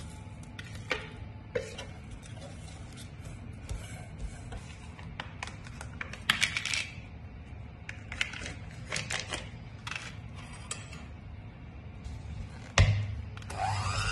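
Kitchen handling sounds: a spoon scraping and tapping as biscuit crumbs are tipped and spread into a cake tin, scattered clicks, and packaging being opened. Near the end an electric hand mixer starts with a knock, its motor whine rising and then holding a steady pitch.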